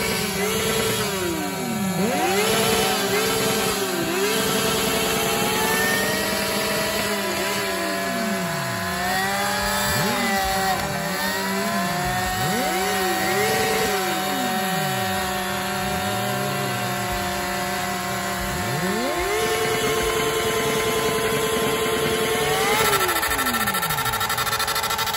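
Sport motorcycle engine revved hard again and again, its pitch sweeping up and down and held high in stretches, while the rear tyre spins in a smoky burnout.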